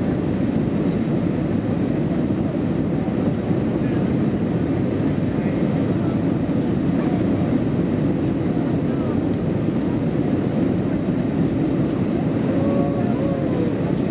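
Steady cabin noise inside an Airbus A320-233 in flight on approach, heard from a window seat over the wing: the drone of its IAE V2500 engines and the rush of airflow, even in level throughout.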